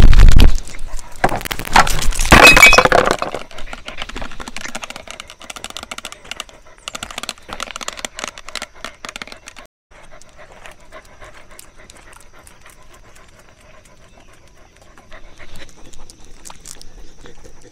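A dog panting close to the microphone, with a very loud knock right at the start and a loud burst of scraping and rattling about two seconds in; the panting and small clicks carry on more quietly after that.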